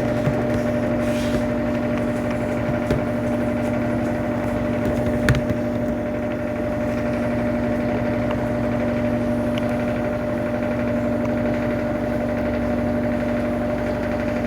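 Electrolux Turbo Economia 12 kg (LTE12) top-loading washing machine in its final spin at top speed (720 RPM), a steady motor hum with a steady whine over it. A single short click sounds about five seconds in.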